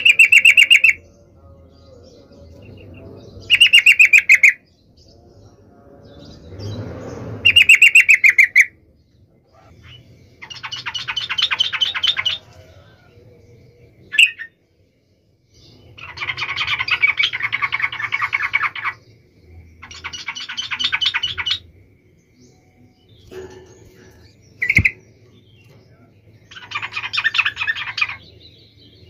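Yellow-vented bulbul singing in repeated phrases of rapid notes, about seven phrases each one to three seconds long, the first three the loudest. Two short single calls fall between them.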